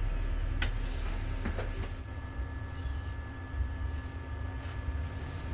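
Hot air rework station blowing a steady rush of air onto a phone motherboard, heating a flex connector's solder so it can be lifted off, with a couple of small clicks in the first two seconds.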